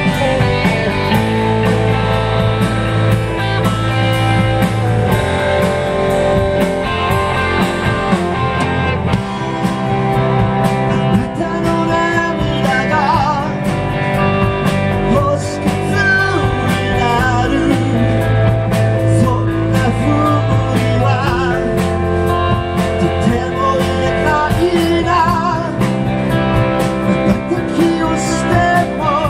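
Live rock band playing rock and roll, with strummed electric guitars, including a Telecaster-style guitar, over a drum kit with cymbals. A few bent, wavering high notes come through about halfway through and again near the end.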